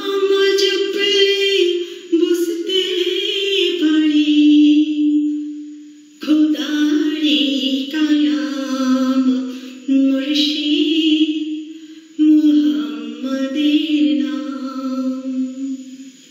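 A woman singing a Bengali Islamic devotional song with no instruments heard beneath her voice, in long held phrases broken by short breaths.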